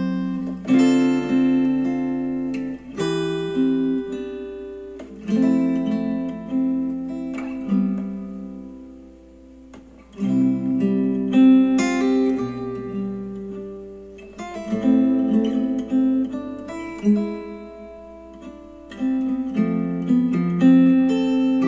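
Instrumental acoustic guitar music, strummed and plucked chords striking and fading, with a brief lull about ten seconds in, played back through KEF Q350 bookshelf speakers driven by an Audiolab 6000A integrated amplifier.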